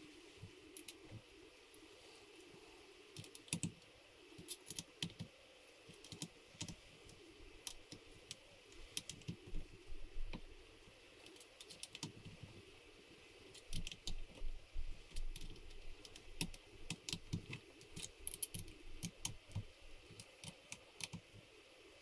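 Irregular light clicks and taps of small metal parts being handled: a Leupold QR scope base and its screws being fitted onto a Tikka T3x rifle's receiver, in scattered clusters with short pauses.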